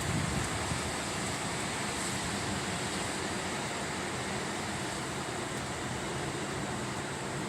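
Rain falling in strong wind, a steady noise with no break.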